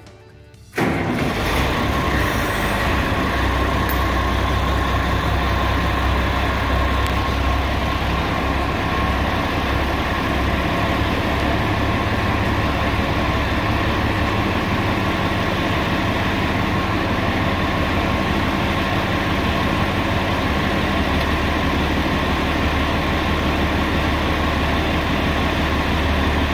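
Front-end loader's engine running steadily and loudly, coming in suddenly about a second in.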